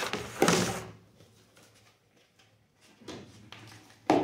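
Plastic containers and packaging being handled: a rustling clatter about half a second in, a faint rustle later, and a sharp knock near the end.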